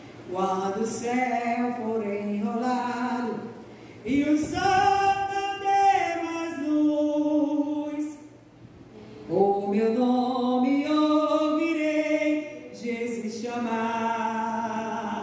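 A woman singing a Portuguese hymn unaccompanied into a handheld microphone, in long held phrases with short pauses between them.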